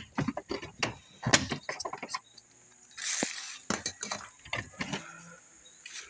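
Irregular clicks, light knocks and rattles of a damaged camper door's bent metal window trim being handled, the loudest knock about a second in, with a brief rustle about three seconds in.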